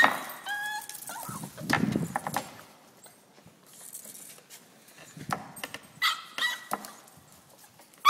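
Boxer puppies whimpering and yipping in short high whines, loudest in the first second and again briefly about six seconds in, with scuffs and knocks between the cries.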